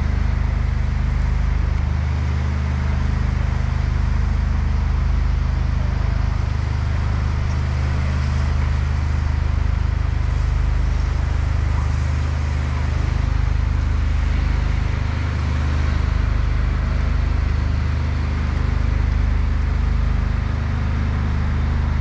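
An engine running steadily: a low, even drone with a faint hiss above it.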